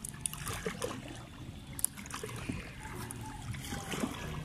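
Water trickling and lapping along the hull of a small outrigger canoe on calm water, with a sharp click about two seconds in.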